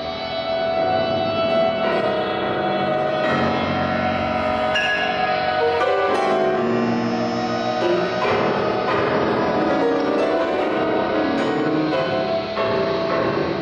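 Concert grand piano playing contemporary music together with computer-generated electronic sounds from loudspeakers: a dense texture of sustained, ringing chords that shift every second or two.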